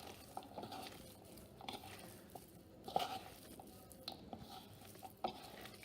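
Sliced onions and pakoda batter being mixed in a bowl: faint, irregular wet mixing noises with small clicks, a couple of them sharper.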